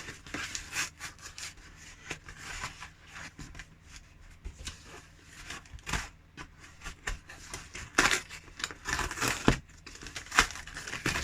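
A tightly packed parcel being opened by hand: irregular rustling, tearing and crinkling of packaging with sharp clicks, busiest in the last few seconds.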